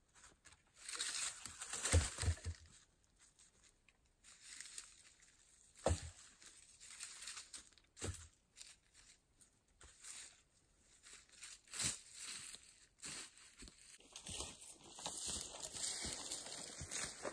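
Rustling and crinkling handling noises, with a few sharp knocks spread through.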